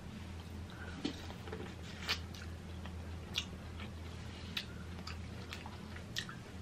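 A person biting and chewing kernels of sweet corn off the cob, close to the microphone, with soft crunches and mouth clicks about once a second. A steady low hum runs underneath.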